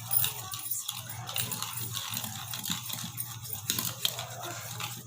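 A spoon stirring a wet spice paste of lemon juice, chilli, masalas, cornflour and flour in a bowl, with continuous irregular squelching and scraping, over a steady low hum.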